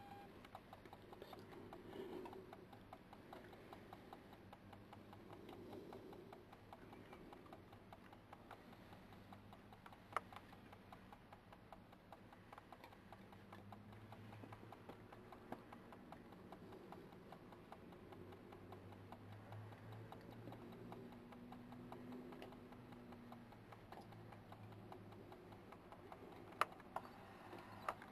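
Near silence: faint low hum of night ambience, broken by a few isolated sharp clicks, one about ten seconds in and two close together near the end.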